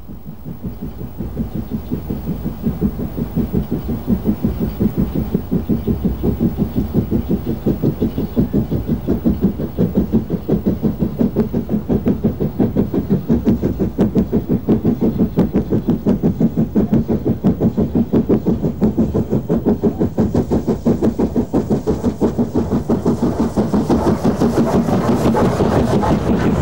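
Great Central Railway 'Director' class two-cylinder 4-4-0 steam locomotive hauling a train of coaches, its chimney exhaust beating steadily at about four beats a second. The beats grow louder over the last few seconds as it draws close.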